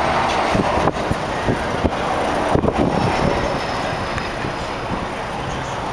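Steady rushing noise, with a few light knocks in the first three seconds.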